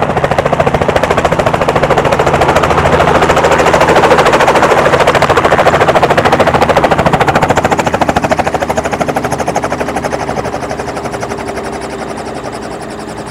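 Small two-bladed helicopter landing close by, its rotor beating in a rapid, even rhythm over a steady engine tone. The beat is loudest in the first half, then grows softer over the last few seconds as the helicopter sits on the ground with its rotor still turning.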